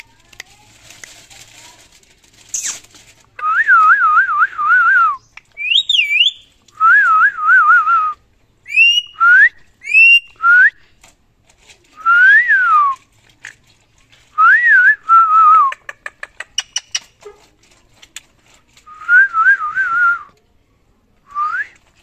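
Whistling going back and forth: a string of warbling whistled phrases, each wavering quickly up and down in pitch, with short, sharper rising whistles between them.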